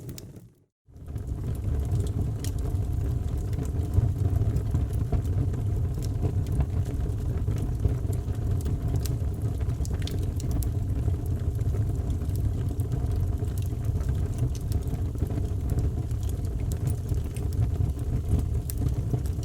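Wood fire in a fireplace burning with a steady low roar, with scattered sharp crackles and pops. The sound cuts out briefly just after the start, then resumes.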